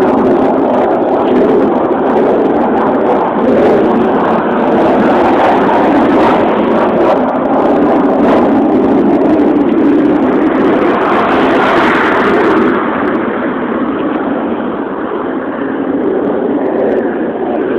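Loud, steady, rough droning noise coming from the sky, with no clear source; it swells and grows brighter about two-thirds of the way through.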